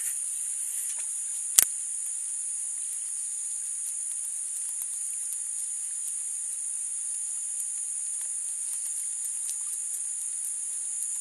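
Steady high-pitched insect chorus from the marsh vegetation, with a single sharp click about a second and a half in.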